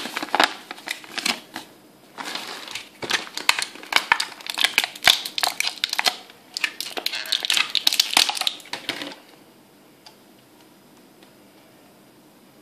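Clear plastic toy packaging crinkling and crackling in the hands as a toy is worked out of it: a dense, irregular run of crackles that stops about nine seconds in.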